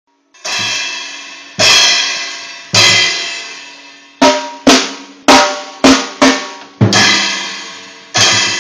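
Drum kit being played: loud cymbal-and-drum hits about a second apart, each ringing out, then a quicker run of six short drum hits, then more ringing cymbal-and-drum hits.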